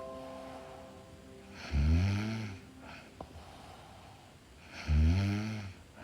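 A woman snoring in her sleep: two snores about three seconds apart, each about a second long, with the pitch rising through each one.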